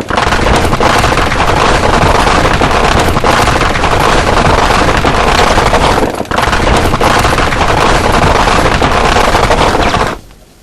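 Sustained machine-gun fire: a loud, continuous stream of shots that barely breaks once about six seconds in and cuts off suddenly near the end.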